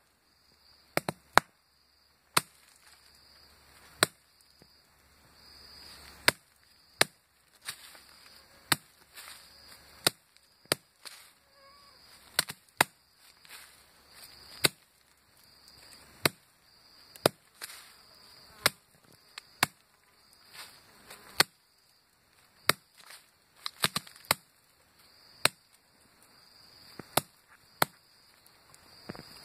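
A wooden stick knocked against the forest floor in sharp, irregular strikes about once a second: the 'batuque' tapping that hunters use to lure agoutis, imitating fruit dropping. Insects chirr steadily in a pulsing high band behind it.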